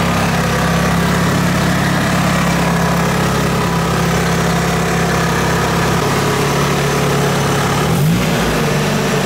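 Nissan S13's engine idling steadily on newly fitted stiff polyurethane motor mounts, which pass its vibration straight into the body so that things rattle. A brief blip of revs near the end.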